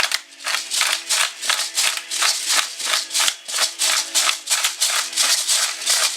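Pepper mill grinding black pepper over the pan, a quick run of crunchy rattling strokes at about four a second.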